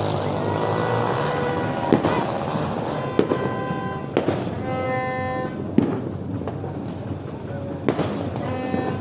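Fireworks going off: about five sharp bangs a second or more apart, over a steady background din.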